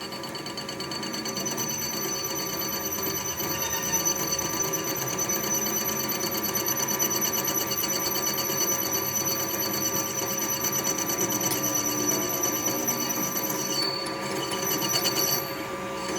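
A workshop machine running steadily with a high ringing whine and a fast, even pulsing rattle. The high whine drops out briefly near the end.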